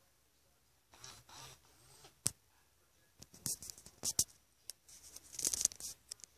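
Scratchy rustling and sharp clicks of a robot toy cat's plush fur rubbing and bumping against the microphone while it is held close, with crackly bursts a little past the middle and again near the end.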